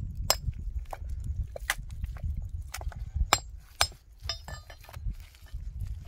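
Small hammer striking limestone rocks, several sharp metallic clinks at uneven intervals, over a low steady rumble.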